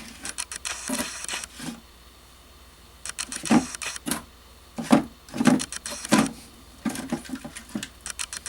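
Support material being picked and broken off a wood-filament 3D print: bursts of scratchy crackling and quick clicks, with a pause about two seconds in.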